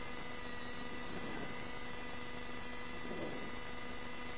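Steady electrical hum and hiss with a few constant tones, unchanging throughout.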